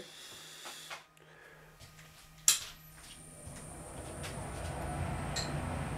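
A sharp click, then a 1955 Schaublin SV-51 milling machine starts up: its low steady hum builds over a couple of seconds and levels off, with a faint high whine, as the spindle turns a slitting saw.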